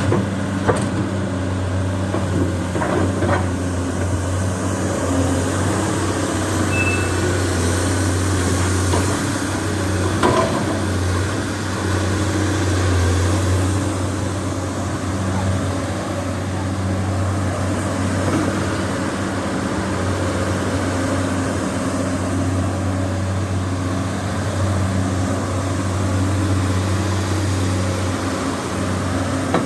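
Komatsu PC200-8M0 excavator's six-cylinder diesel engine running steadily, with a few short knocks in the first ten seconds or so.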